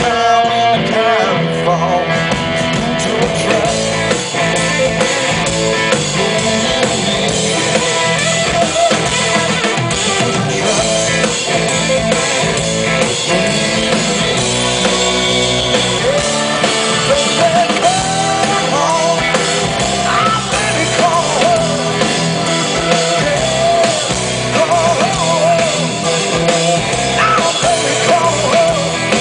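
Blues-rock band playing live: electric guitar over bass and drum kit, with a lead line that bends and wavers in pitch.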